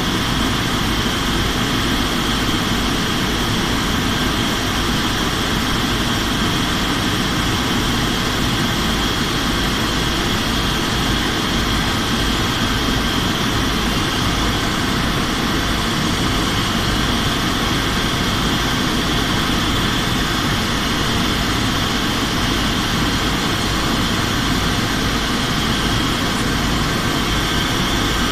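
Airliner cabin noise during descent: the steady drone of the engines and rushing air, with a steady high whine over a low rumble, unchanging throughout.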